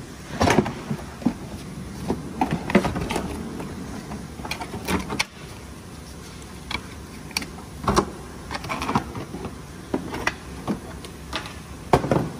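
Plastic wheel arch liner being flexed and pulled free by hand, with irregular clicks and knocks of plastic, a few of them louder.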